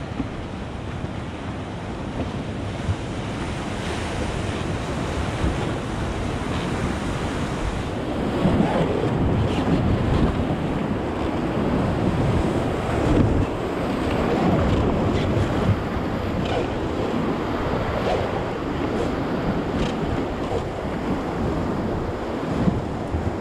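Rushing whitewater of a river rapid around an oar raft, with wind noise on the microphone; the water grows louder about a third of the way in.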